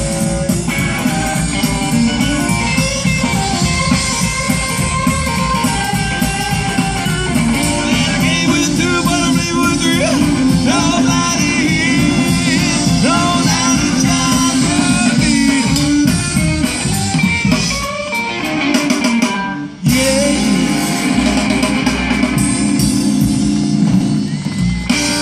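Live rock and roll band playing: electric guitar, upright double bass and drum kit, with a singing voice. The band stops short for a moment about twenty seconds in, then comes straight back in.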